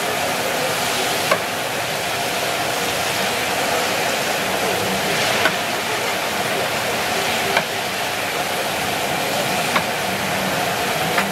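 Battered chicken pieces deep-frying in a large wok of hot oil, a steady loud sizzle, with a few sharp clicks scattered through.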